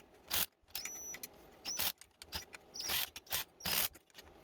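A hand tool working the mounting bolts of a motorized bike's rear sprocket: a series of short, uneven mechanical rasps and clicks, with a few faint high squeaks.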